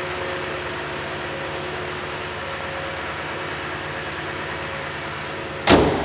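Toyota Sequoia's 5.7-litre V8 idling steadily and smoothly, then a single loud slam near the end as the hood is shut.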